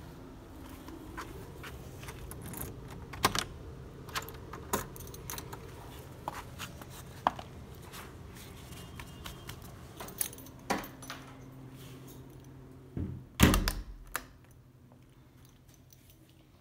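Keys jangling, with scattered clicks and knocks as a door is passed through. About 13 seconds in comes a louder double thud like the door shutting, after which the steady low background hum falls away.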